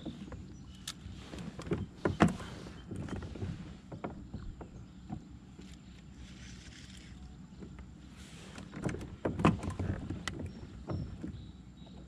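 Handling noise of a fishing rod, spinning reel and gear in a kayak: scattered clicks and knocks over a low steady rumble, with a louder knock about two seconds in and a cluster of knocks around nine seconds in.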